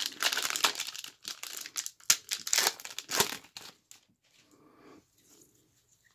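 Foil wrapper of a 1990–91 Skybox basketball card pack being torn open and crinkled: dense crackling for about three and a half seconds, then only faint rustles.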